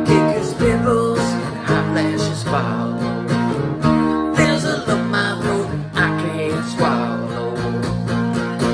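Acoustic guitar strumming chords, with a man singing over it.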